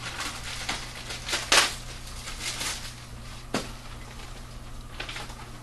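Plastic parts bags and paper being handled: crinkling and rustling, with scattered small clicks and two sharper snaps, over a low steady hum.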